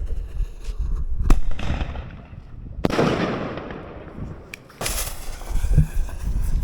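Consumer firework artillery shells going off: a sharp bang about a second in, a second bang a second and a half later that trails off in a long hiss of fading crackle, then another loud burst near the end.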